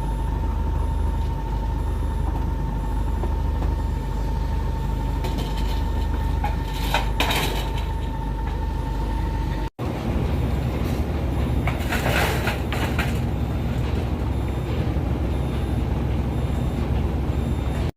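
Boat engine running steadily with a low drone, broken by a brief cut about ten seconds in, with short hissing noises about seven and twelve seconds in.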